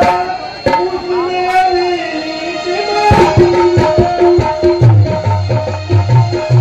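Live stage music: steady held notes from a melody instrument, joined about three seconds in by quick hand-drum strokes, with a deep, pulsing drum beat coming in near five seconds.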